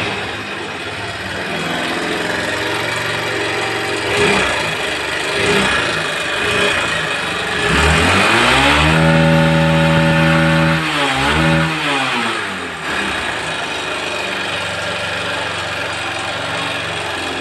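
Hero Honda CBZ's single-cylinder four-stroke engine idling, then revved up about eight seconds in, held high for a few seconds, blipped once more and let fall back to idle. The engine is running very noisily, the fault the customer complained of.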